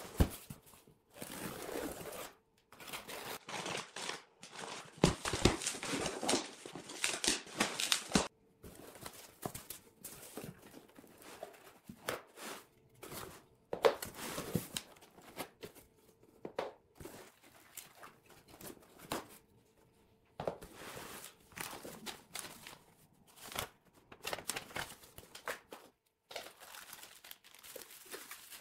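A cardboard box being opened and unpacked: packing tape slit and torn and cardboard flaps scraped for the first several seconds, then intermittent rustling and crinkling as foam-packed parts and plastic-bagged cables are lifted out.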